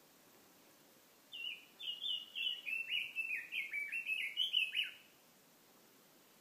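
A songbird sings one song of about three and a half seconds: a fast run of short, clear, down-slurred whistled notes, over a faint steady hiss.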